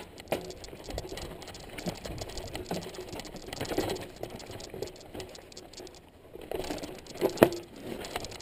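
Mountain bike rattling and clicking as it rolls over rocky trail, with rapid small knocks from the tyres and bike striking rock and one sharp, louder knock near the end.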